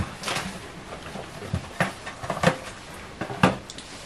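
Scattered short crunches and clicks from people eating Pocky biscuit sticks and handling the snack packets, with a few soft murmurs.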